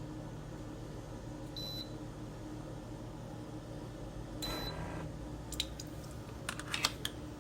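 Single-serve coffee maker humming steadily while it runs. It gives two short high beeps about three seconds apart, and a few light clicks come near the end.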